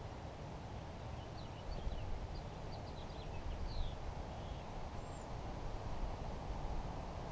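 A small bird chirping a quick run of short high notes from about one to four seconds in, with one more faint chirp shortly after, over a steady low rumble of outdoor background noise.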